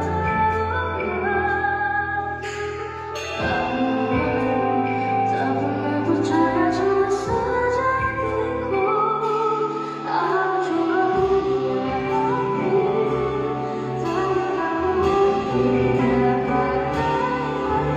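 A woman singing a slow pop ballad live into a microphone, backed by a live band and heard through the hall's PA.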